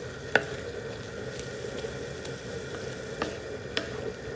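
Ground-beef chili sizzling in its liquid on a carbon-steel plow disc while a wooden spatula stirs it, with a few sharp taps of the spatula against the steel, the loudest about half a second in.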